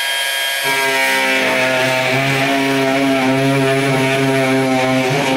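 Bosch GOP 18V-28 cordless brushless oscillating multi-tool running at speed with a steady high-pitched buzz. A deeper buzz joins about half a second in as the blade cuts into the work.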